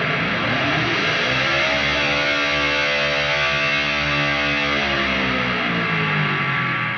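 High-gain distorted electric guitar holding a sustained note, its pitch bent up about a second in and brought back down near the end, then starting to fade away.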